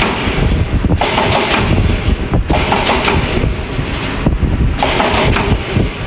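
Heavy machinery running: a loud, rough low rumble with irregular surges of higher noise every second or so.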